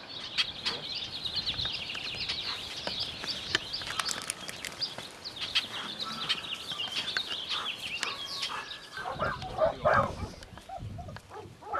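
Many small birds chirping and twittering in quick, high-pitched calls. Near the end, a run of short, louder scuffing sounds takes over.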